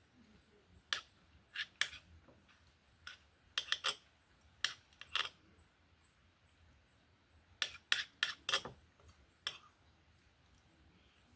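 Someone eating: a series of short, sharp clicks and smacks, about fifteen in all, in two bursts with a pause of a couple of seconds between them.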